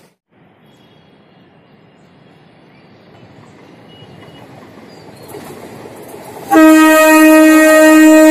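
MEMU electric train approaching with a faint rumble that slowly grows. About two-thirds of the way in, its horn sounds one long, loud, steady blast that is still going at the end.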